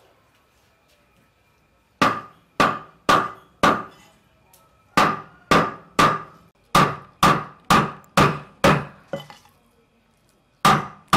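Knife chopping raw beef on a thick wooden chopping block: sharp thuds at about two a second, in three runs with short pauses between them, starting about two seconds in.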